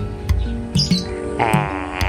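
Background music with a steady beat and held notes, with a wavering, warbling tone near the end.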